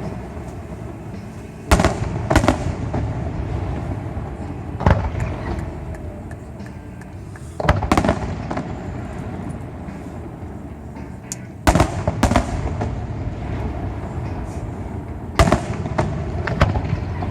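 Fireworks display: aerial shells bursting with sharp bangs every few seconds, about eight in all, some in quick pairs, each trailing off in a rumbling echo.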